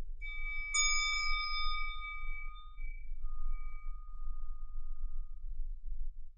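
A small Tibetan singing bowl struck once with a mallet, ringing bright and high and fading away over about four seconds. The lower hum of an earlier bowl dies out just before the strike.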